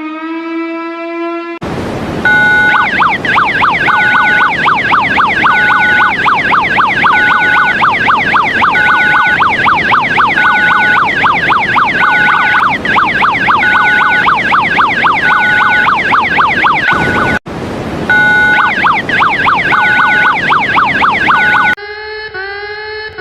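Emergency alert siren: a loud electronic alarm of rapid rising-and-falling yelps over a steady two-tone signal that cuts in and out at an even rhythm, with a brief break near the end. It opens with the tail of a held alert tone, and a different alarm with repeated rising notes takes over just before the end.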